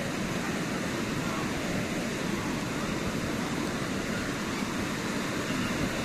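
Beach ambience: the steady, even wash of surf breaking on a sandy shore.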